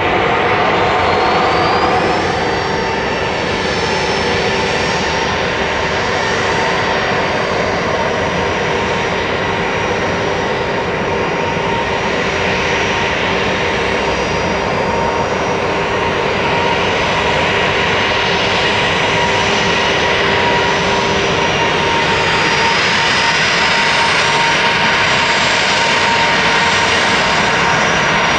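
Boeing 737-800 twin CFM56-7B turbofan engines running loud and steady during take-off, a dense jet noise with several steady whining tones. A high whine rises in pitch a second or two in, then holds.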